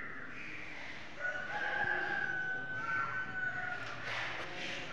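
A distant animal call, one long drawn-out note held for about two and a half seconds, starting about a second in.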